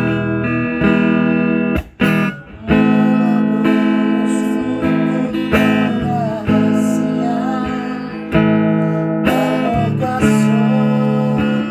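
Acoustic guitar strummed and plucked with amateur singing over it, pausing briefly about two seconds in.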